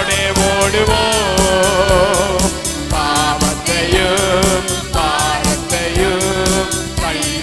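A man singing a Tamil Christian worship song into a microphone, with an instrumental backing that keeps a steady beat.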